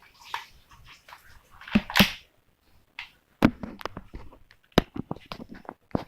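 Irregular string of sharp clicks and knocks from handling a toy air gun, the loudest about two seconds in and again about three and a half and five seconds in.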